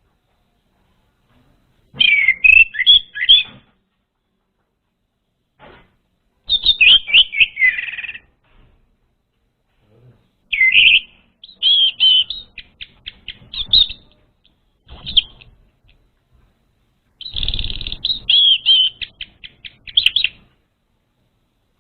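Orange-headed thrush singing: short phrases of clear, varied whistles mixed with quick runs of chattering notes, in about five bursts separated by pauses of a second or two.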